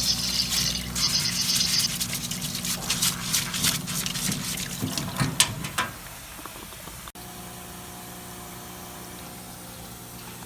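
Heated soapy-water parts washer running: its pump hums steadily while water splashes and sprays over greasy parts. About six seconds in the splashing stops and only a quieter, steady hum remains.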